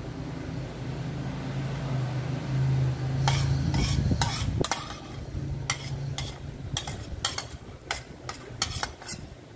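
Metal spoon scraping and clinking against a metal pan as sauce is scraped out onto a plate: a run of short, sharp scrapes and clinks starting about three seconds in, over a low steady hum.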